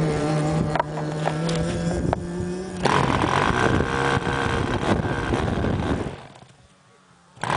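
Twin-cylinder glow engine of a model airplane, with a glow-plug igniter on its head, running very close up with a few clicks. About three seconds in it gets louder with rising pitch. Around six seconds in the sound drops away to near quiet, then comes back sharply just before the end.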